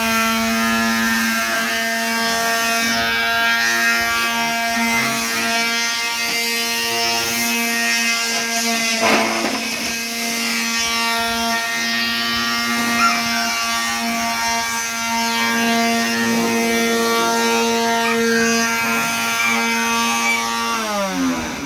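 Electric sander running steadily on a wooden desk top with a constant whine, then spinning down as it is switched off near the end.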